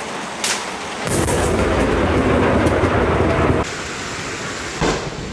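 Thunderstorm: steady rain with a sharp crack of thunder about half a second in, then a loud low rumble of thunder for about two and a half seconds that cuts off suddenly, and another crack near the end.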